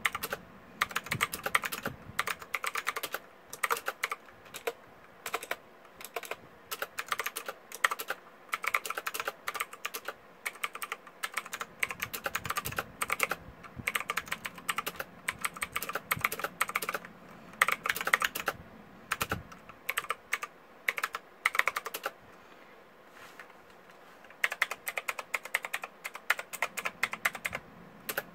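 Typing on a Redragon K555 Indrah mechanical keyboard with off-brand switches: fast runs of key clicks broken by short pauses, with a longer pause of about two seconds late on.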